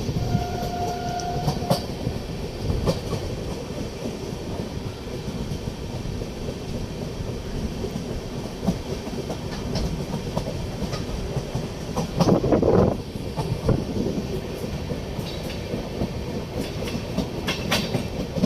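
Train running on the rails, a steady rumble with wheels clicking over rail joints. A short steady tone sounds in the first second or so, and the rush swells louder about twelve seconds in.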